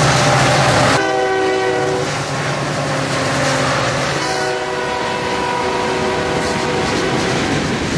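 Diesel locomotive's multi-chime air horn sounding two long blasts, over the steady rumble and clatter of double-stack intermodal well cars rolling past. In the first second the passing locomotive's engine is still heard before the horn starts.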